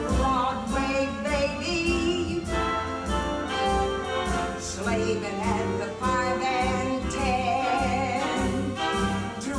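A woman singing a show tune over orchestral accompaniment, her held notes wavering with vibrato.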